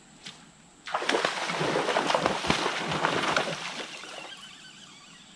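Water splashing hard and irregularly at the surface, as a hooked fish thrashes on the line: it starts suddenly about a second in, keeps going for about three seconds, then fades.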